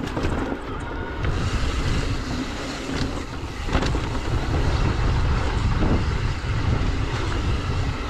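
Mountain bike riding down a rough dirt trail: wind buffeting the microphone as a steady low rumble, with tyre noise on dirt and a few sharp knocks as the bike goes over rocks and bumps.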